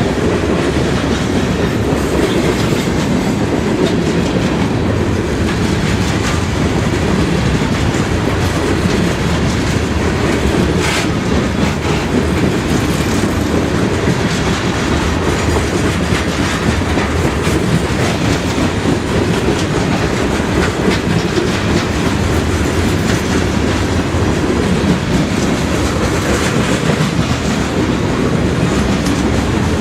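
Freight train's cars rolling past at close range: a steady heavy rumble with the clickety-clack of wheels over rail joints.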